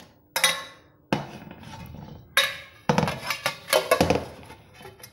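Stainless steel plates knocking and clanking together as a plate of set sweet is turned over onto another plate: a few separate sharp metallic strikes, then a quick cluster of them about three seconds in, each ringing briefly.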